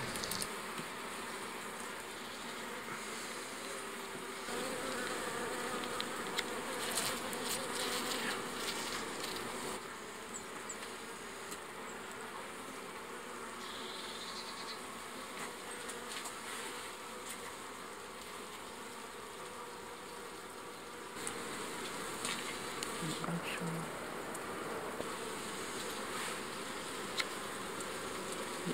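Honeybee colony buzzing steadily: the dense hum of many bees on the combs of an opened hive.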